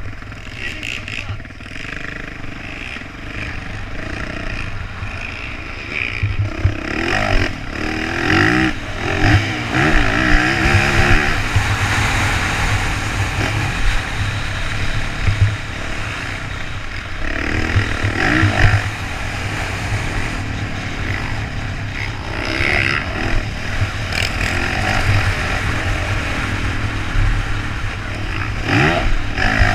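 Dirt bike engine revving up and falling back through the gears while riding, with heavy wind buffeting on the helmet camera's microphone. The engine climbs hardest about a quarter of the way in, again just past the middle, and near the end.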